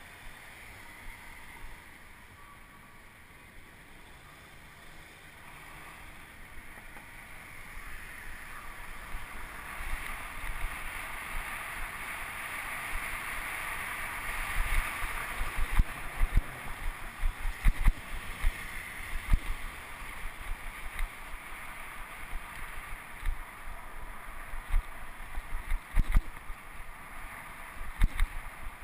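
Wind rushing over the microphone and road rumble from a bicycle riding on city pavement. It grows louder as the bike picks up speed a third of the way in. In the second half come frequent sharp knocks and jolts from bumps in the road.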